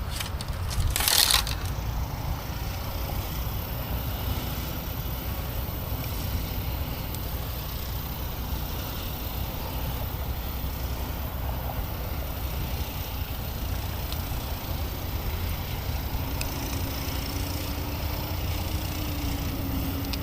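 Steady low outdoor rumble, with one brief loud rush of noise about a second in and a faint steady hum that starts near the end.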